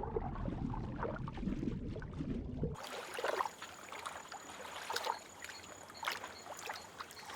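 Water sloshing and splashing. About three seconds in, the low rumble drops away abruptly, leaving a thinner, hissy background with a faint steady high tone and occasional short splashes.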